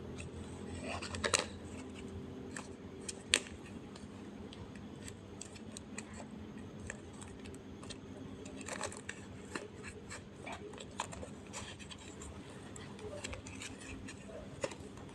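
Scissors snipping, with scattered small clicks and rustles from handling. There are two sharper snips in the first few seconds.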